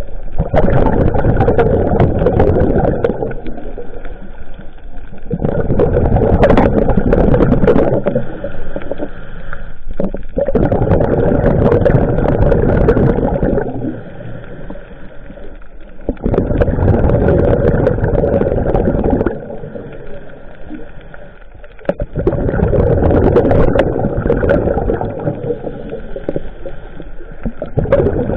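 Scuba diver's exhaled bubbles rumbling underwater, heard through the camera housing: a burst of about three seconds every five to six seconds, with quieter gaps between breaths.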